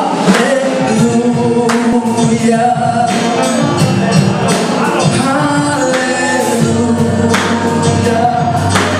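Gospel music: a choir singing, with percussion hits running through it.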